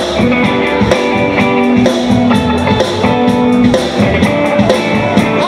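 Live rock band playing an instrumental passage: electric guitars over bass and drums, with no vocals.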